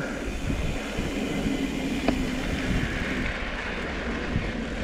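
Mountain bike rolling fast down a sandy dirt trail: steady tyre rumble on loose dirt mixed with wind rushing over the camera microphone, with a single sharp click about two seconds in.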